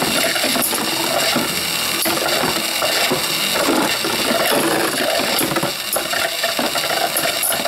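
Two plastic-and-metal Beyblade Burst spinning tops, Griffin Dragoon and Golem Behemoth, whirring as they spin across a plastic stadium floor. Many small clicks and knocks run through it as they clash and scrape against each other and the stadium.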